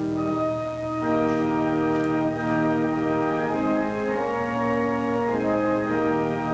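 Organ playing slow, sustained chords, the held notes changing together about a second in and then every second or so.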